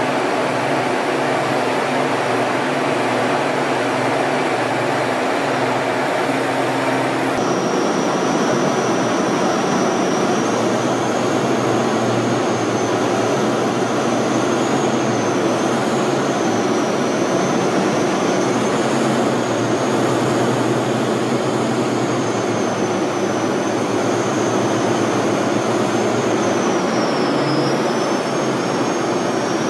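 T-38 Talon jet in flight, heard from inside the aircraft: a steady rush of engine and air noise. About seven seconds in the sound changes abruptly and a high whine comes in, drifting slightly up and down in pitch.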